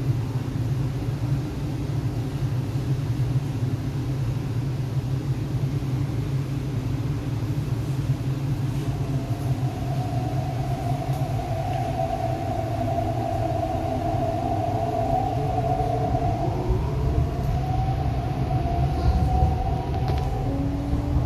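Cabin of an MTR East Rail Line R-Train electric multiple unit: a steady low hum while it stands at the platform, with a steady whine coming in about halfway. In the last few seconds several whines rise in pitch together as the traction motors start the train moving out of the station.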